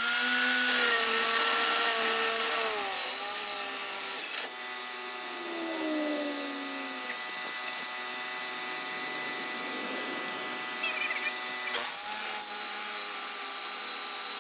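Electric saw running and cutting through a section of exhaust pipe, its motor whining steadily. The pitch sags under load about three seconds in, the saw runs quieter for several seconds, then comes back louder near the end.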